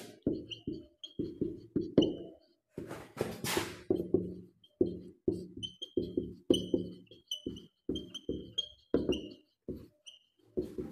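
Marker pen squeaking and tapping across a whiteboard in short quick strokes while a line of text is written, several strokes a second, with a short hiss about three seconds in.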